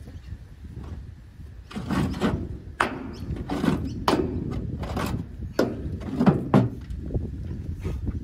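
A run of irregular knocks and thuds, about eight of them, starting about two seconds in and easing off near the end.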